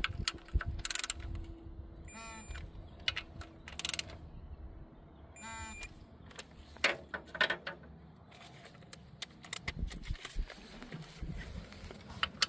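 Socket wrench on an extension tightening the bolts of a Humvee water pump and front cover plate to torque. Two short bursts of ratcheting come through, with scattered sharp metal clicks and clinks of the tools.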